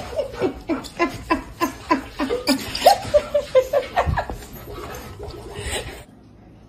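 A person laughing hard in a quick run of "ha" sounds, about three a second, cut off suddenly near the end.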